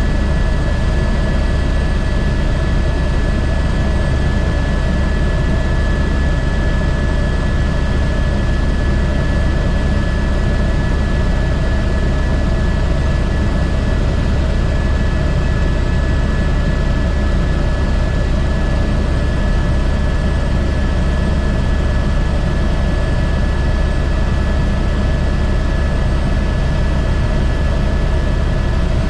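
Airbus H125 helicopter in flight, its turboshaft engine and rotor running steadily: a deep, heavy low rumble under a steady high turbine whine.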